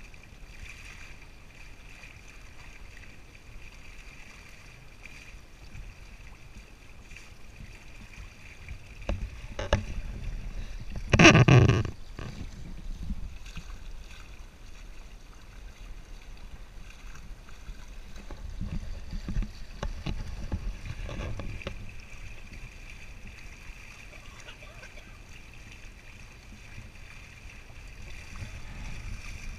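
Water rushing and splashing along the hull and wake of a sailing kayak under way, a steady wash of noise. About eleven seconds in there is a brief, loud rush of noise, with smaller swells later on.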